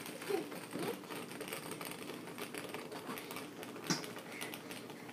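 Small plastic spinning top whirring on a woven placemat, a steady fine rattle of rapid ticks, with one sharp tap about four seconds in.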